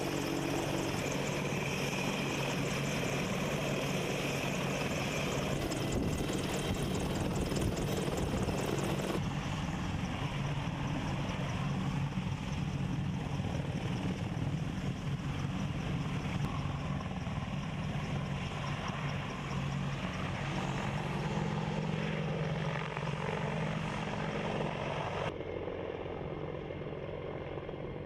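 AH-64 Apache attack helicopter running, its main rotor and twin turbine engines giving a steady drone. The sound changes abruptly about nine seconds in and again near the end, and grows a little fainter at the close.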